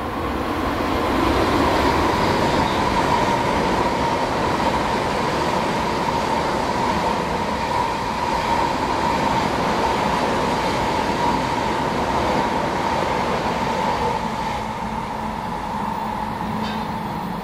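Tokaido Shinkansen bullet train passing at about 110–160 km/h: a steady rushing rumble with a high steady tone running through it, swelling as the train arrives and tailing off near the end as it moves away.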